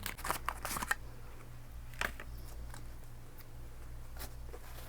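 Plastic packaging crinkling and crackling as an eyeshadow palette is worked out of it, a quick run of crackles at first, then two single sharp clicks a couple of seconds apart.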